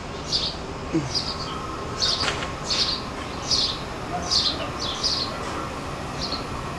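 A bird chirping over and over, short high calls about once every second or less, over a steady low background rumble with a faint steady tone.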